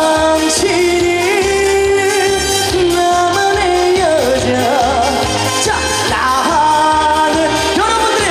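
Live trot song: a singer holds long notes with vibrato over a backing track with a steady, pulsing bass beat.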